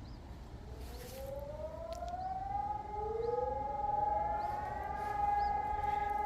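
Electronic civil-defence sirens of the Sonus HES 600 type sounding a test. One winds up in pitch and settles on a steady tone. About halfway through, a second, lower siren winds up and settles as well, and the two hold steady tones together.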